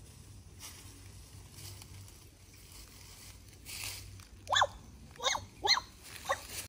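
Faint rustling in dry leaf litter, then from about four and a half seconds in an animal calling: a quick run of five short cries, each rising and falling in pitch.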